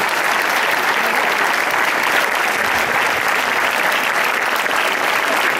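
Large audience clapping steadily in a sustained round of applause, many hands at once.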